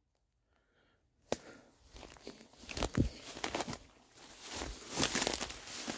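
Footsteps crunching through dry grass and leaves and pushing through brushy undergrowth, starting about two seconds in and getting busier toward the end, after a single click just over a second in.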